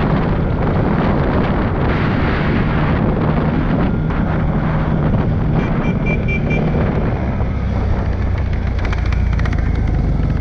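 CFMOTO CForce 625S ATV's single-cylinder engine running under way on a dirt track, with wind buffeting the helmet microphone. The engine note eases off in the last few seconds as the ATV slows.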